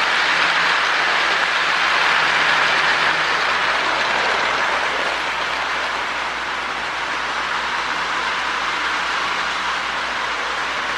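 Lionel MPC-era U-boat model diesel locomotive running on toy train track, pulling a train of Marx log cars: a steady whir of its electric motor and gearing with wheels rolling over the rails, easing off slightly about halfway through.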